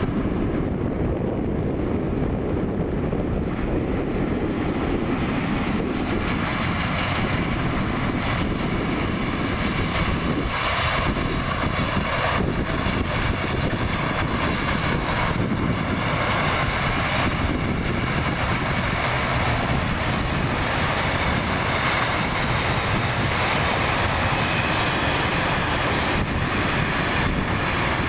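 Train passing: a long, steady rumble of wheels on rails, with faint clatters now and then.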